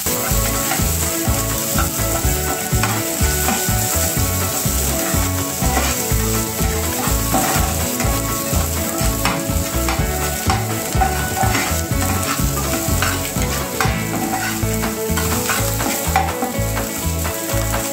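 Chopped onions frying in hot oil in a frying pan, sizzling steadily, while a metal spoon stirs them with repeated light scraping and tapping against the pan.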